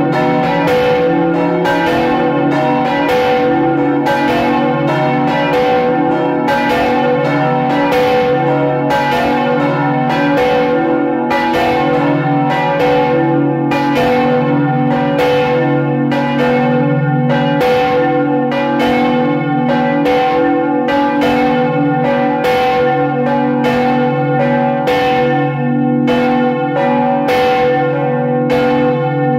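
Five church bells swinging and ringing together in full peal, heard close up inside the belfry. Their clapper strikes overlap several times a second over a steady ringing hum.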